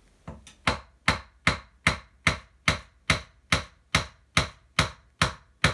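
Wooden mallet tapping a small electric motor into its plastic rear-axle housing: about fourteen sharp, even taps, roughly two and a half a second, as the tight-fitting motor is driven in bit by bit.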